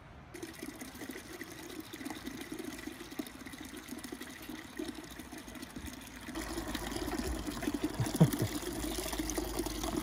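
Cooled beer wort pouring from the tap of a stainless electric brewing kettle through a sieve into a plastic fermenting bucket, splashing onto the foam already in it. The pour is steady and grows louder about six seconds in, with a single knock a couple of seconds later.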